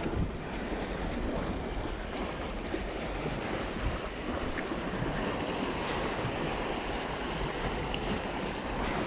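Sea waves washing against the boulders of a rock breakwater, with wind buffeting the microphone.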